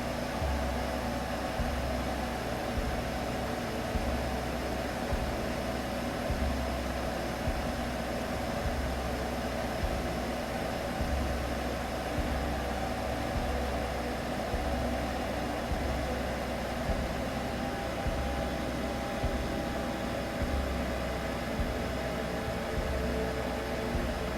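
Steady humming drone over a soft hiss, with a deep low throb pulsing about every second and a half: a continuous soothing sleep sound for a baby.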